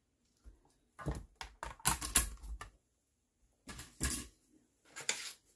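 Handling noises of a plastic stamping platform and card stock being picked up, moved and set down on a craft mat: quick clacks, knocks and rustles in three bunches, the busiest from about a second in to nearly three seconds.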